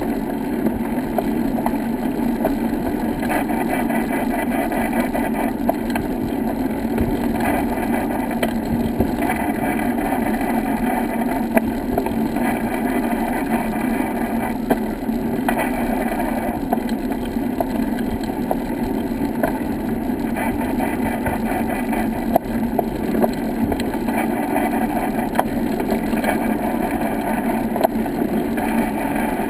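Steady rolling noise of a vehicle riding along a brick-paved path, with scattered light clicks and rattles from the bumps.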